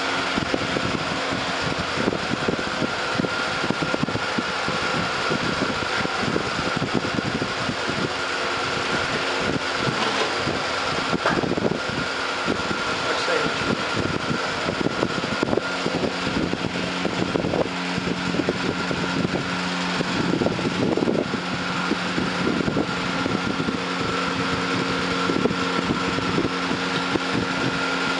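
Large steel bladed wheel spinning on its shaft in a frame: a steady machine hum with a constant tone, and irregular clattering and rattling throughout.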